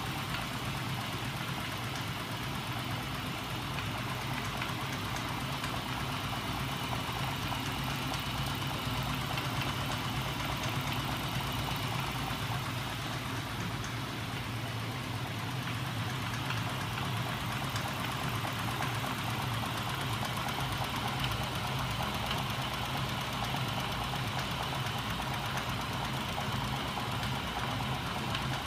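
Homemade magnet engine driven by small 12 V DC electric motors, running steadily: spinning flywheels and reciprocating arms give a constant mechanical hum with a fast, even clatter.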